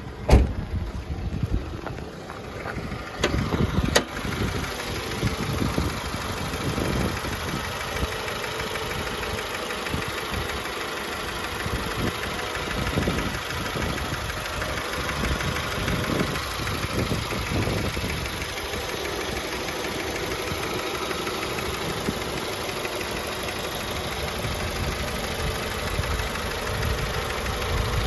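A 1995 Honda CR-V's B20B 2.0-litre four-cylinder engine idling steadily, heard with the hood open. A few sharp clacks sound in the first four seconds.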